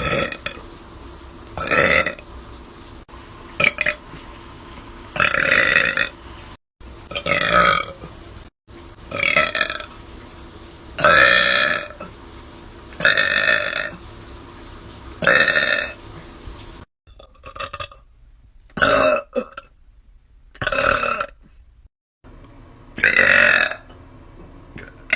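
A person's loud, deep burps in a steady series, about a dozen, one roughly every two seconds.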